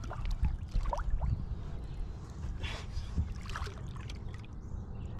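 Water sloshing and splashing against a boat's side as a musky is held in the water by hand to revive it for release, over a steady low rumble.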